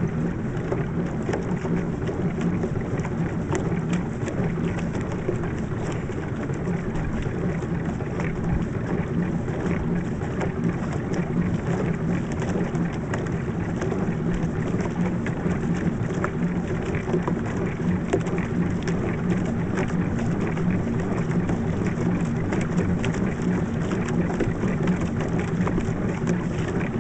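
Pedal boat under way: a steady, even rush and splash of water along the hull, with no break.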